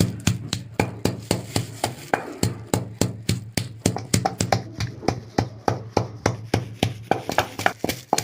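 Quick, even chopping with a knife on a cutting board, about five strokes a second, over a low steady hum.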